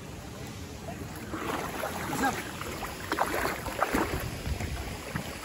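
Wind buffeting the microphone, and from about a second in the rubbing, squeaking and knocking of an inflatable vinyl kayak as people climb in and sit down.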